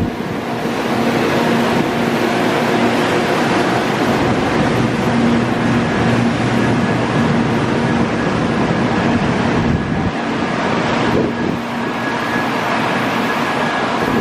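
A 700 series Shinkansen trainset moving slowly over a road level crossing on its way into the works to be scrapped: a loud, steady rolling noise with a constant hum.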